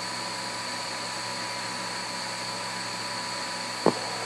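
Steady hiss with faint hum tones from a 1967 Lunar Orbiter audio tape, the open line between transmissions. A single short click sounds near the end.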